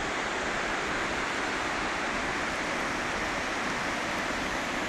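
Steady, even rush of fast-flowing water, running high after days of heavy rain.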